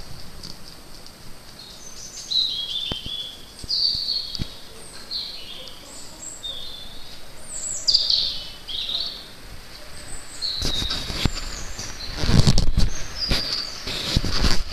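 A songbird singing, repeating short high whistled phrases of notes that slide downward. From about ten seconds in, loud rumbling and crackling noise comes in over the song.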